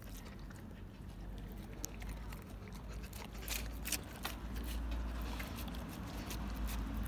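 Labrador retriever licking and chewing a slice of pizza: scattered wet mouth clicks and smacks, over a steady low hum.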